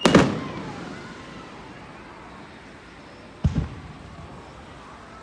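Aerial firework shell bursting overhead with a sharp bang that fades over about a second. About three and a half seconds in comes a shorter double thump as the next shell is fired up from its launch tube.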